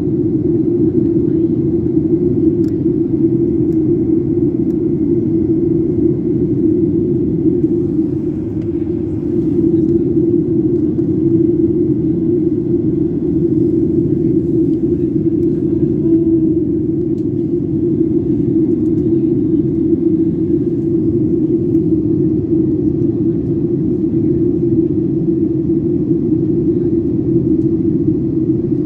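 Steady cabin drone of a Boeing 737 airliner on approach: jet engine and airflow noise heard from a window seat inside the cabin, a deep, even rumble.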